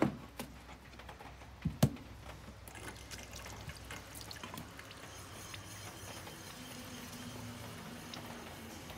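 Two sharp knocks, then the steel back of a Japanese plane blade rubbed flat on a wet sharpening stone: a steady, even hiss. The rubbing shows which parts of the back touch the stone.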